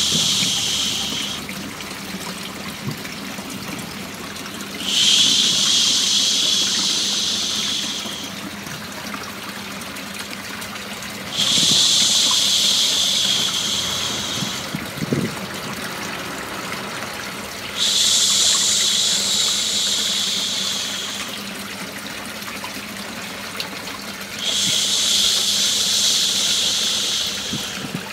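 A person's long 'shhh' shushing, repeated about every six and a half seconds. One shush ends about a second in, then four more follow, each lasting about three seconds. Under it runs a steady running-water white-noise bed, the soothing sound used to lull a baby to sleep.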